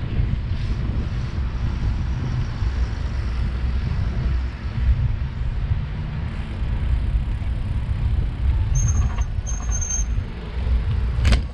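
Wind buffeting the microphone and road rumble of a bicycle rolling along an asphalt street: a steady, heavy low rumble. Two short high-pitched squeaks come about nine and ten seconds in, and a sharp click comes just before the end.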